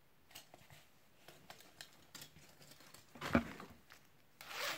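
Faint rustling and small clicks of a zip-up jacket being handled, with a soft knock about three seconds in and a short rasp near the end as the jacket's zipper is pulled open.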